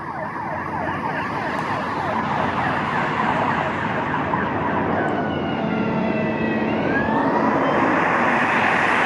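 Emergency vehicle siren sweeping up and down in pitch over steady road traffic noise.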